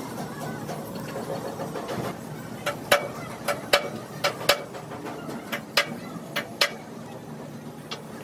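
A steady low engine hum with about a dozen sharp, brief knocks scattered irregularly through the middle.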